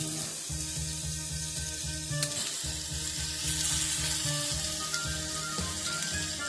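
Sliced pork sizzling in a clay donabe pot, a steady hiss with a sharp click about two seconds in. Background music with a low bass line runs underneath.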